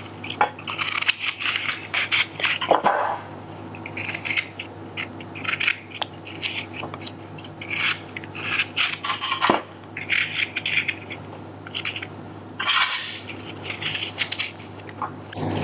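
Small kitchen knife cutting and coring a peeled apple by hand, in irregular crisp slicing and scraping strokes, with a couple of sharp clicks against a stainless steel tray.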